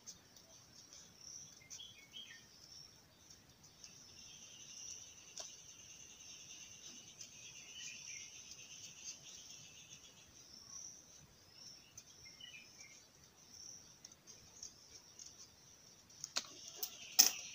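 Scissors snipping through chart paper: a few faint snips, then a cluster of sharp snips near the end, the last and loudest a second before the end. Steady high-pitched chirping of insects or birds is heard behind it.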